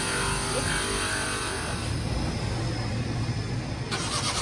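Bench polishing motor running steadily, its cloth buffing wheel polishing a red plastic tail-light lens. The even hum gives way to a low rumble about halfway through.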